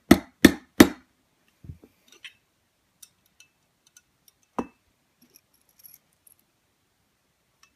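Claw hammer tapping a steel roll pin into a pistol's trigger, three quick sharp taps in the first second. These are followed by faint scattered clicks and one louder knock about four and a half seconds in.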